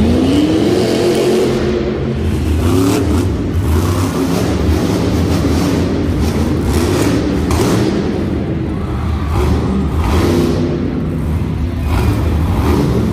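Monster truck engine revving over a steady low rumble, its pitch climbing near the start, with several short throttle bursts.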